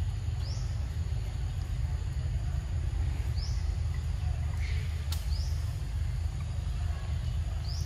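Outdoor background of a steady low rumble with short, high, rising bird chirps every two to three seconds, and a single sharp click about five seconds in.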